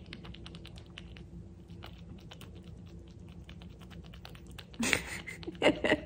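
Close, rapid irregular clicking and squishing of fingers rubbing and massaging a golden retriever's ear during ear cleaning. Near the end, a louder burst and a short laugh.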